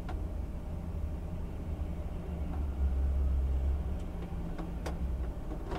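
Volvo truck's diesel engine idling, heard from inside the cab: a steady low rumble that swells a little about halfway through.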